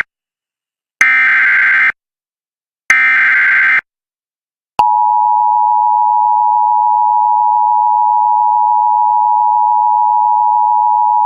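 Emergency Alert System SAME header: two one-second bursts of rapid digital data tones, about two seconds apart. About five seconds in, the steady two-tone EAS attention signal begins, announcing an incoming emergency alert.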